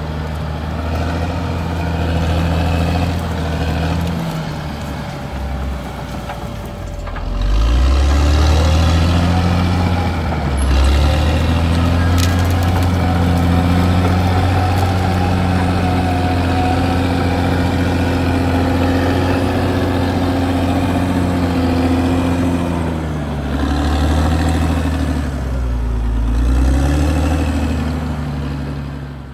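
Caterpillar D6R XL bulldozer's diesel engine running steadily under work, its pitch dipping and rising again about seven seconds in and a few times near the end.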